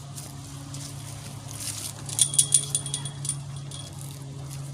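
Small metal tags jingling in quick rattles from about two seconds in, over a steady low hum.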